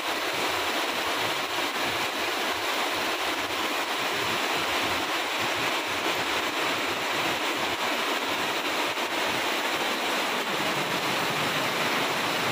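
Heavy rain falling steadily on banana leaves, trees and grass, a dense even hiss with no letup.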